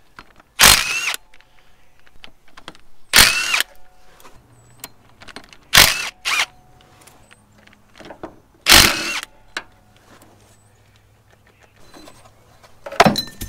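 Ridgid 18V cordless impact driver run in four short bursts, its motor pitch rising in each, as it spins out the pulley's four 6 mm Allen bolts on a VW Rabbit diesel engine. A clatter of metal parts follows near the end.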